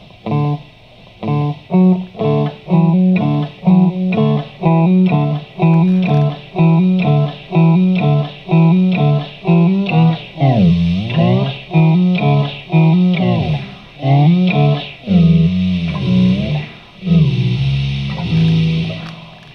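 Electric guitar through a Guyatone MD3 micro digital delay pedal, with the feedback set to about 3 o'clock: a short pattern of notes repeating in an even pulse about twice a second. Past the middle the pitch swoops down and back up several times, and near the end it moves into longer held notes.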